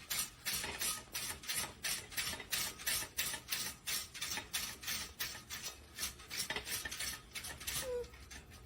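Rhythmic scraping, about three strokes a second, steady throughout.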